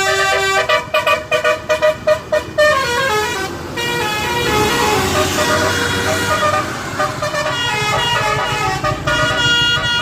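Dav basuri musical air horn on a bus playing a tune. Quick short notes for the first couple of seconds, then overlapping held and sliding tones over a hissing rush, with short notes coming back near the end.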